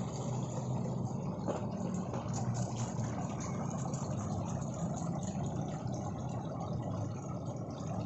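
Steady low rush of water running in a garden fountain, with a few faint clicks from a birdcage being handled.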